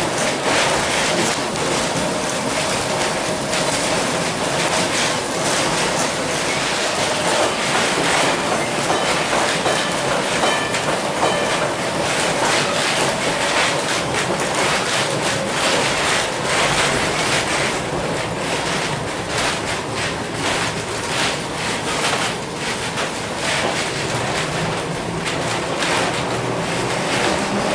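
Vintage 1906 Stephenson-built wooden streetcar riding along its track, heard from inside the car: a continuous rumble and rattle of the body and wheels over the rails, full of quick clicks, with a steady hum underneath.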